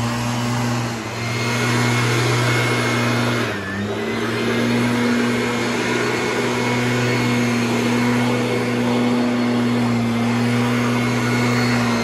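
Small gasoline engine running steadily at a fixed speed. Its pitch sags briefly about four seconds in, then recovers.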